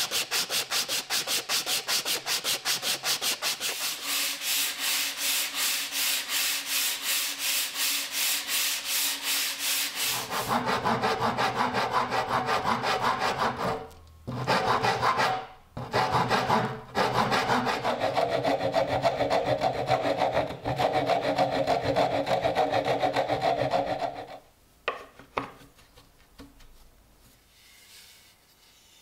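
Coarse P60 sandpaper rubbed by hand along a wooden axe handle, in fast back-and-forth strokes of about four a second. After about ten seconds it changes to a lower, heavier scraping of the handle end, with a few short breaks. This is the wood being shaped to fit the axe head. It stops a few seconds before the end, leaving only a couple of faint knocks.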